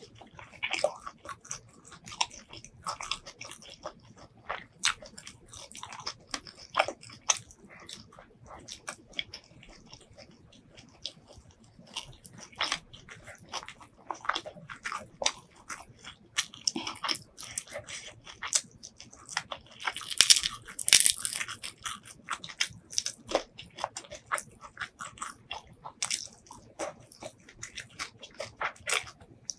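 Close-miked eating sounds: a person chewing food in the mouth, with many short crunches and wet mouth clicks and a louder spell of crunching about two-thirds of the way through.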